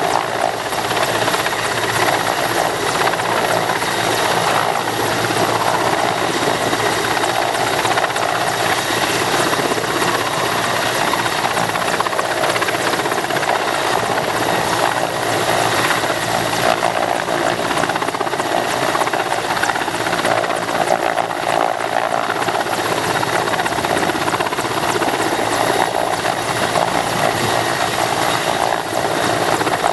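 Mil Mi-17 military transport helicopter hovering low, its rotor and turbine engines making a steady, unchanging noise.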